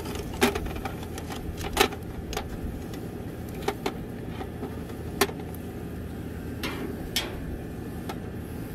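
Metal tongs clicking against oyster shells and a stainless steel pan as oysters on the half shell are picked up one at a time, sharp clicks every second or so. A steady low rumble runs underneath.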